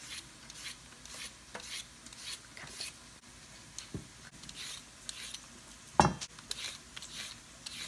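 Vegetable peeler scraping down a carrot in quick, repeated strokes, with a louder knock about six seconds in.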